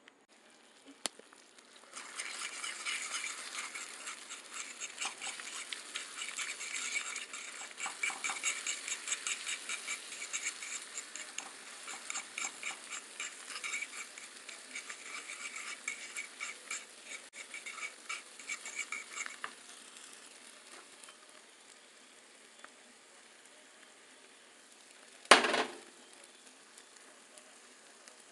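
Close-miked eating sounds: fast, crackly, wet chewing and mouth noises that run for most of the first two-thirds, then fade out. Near the end there is one short, loud sound.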